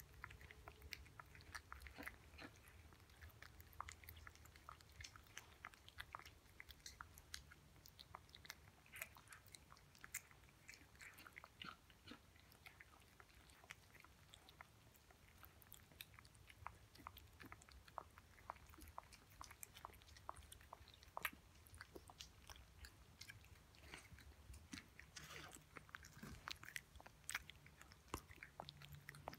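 Cat eating soft canned pâté from a china saucer: faint, irregular wet clicks of chewing and licking.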